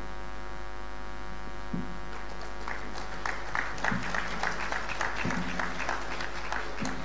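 Light, scattered audience applause, individual claps starting about two seconds in, over a steady electrical mains hum.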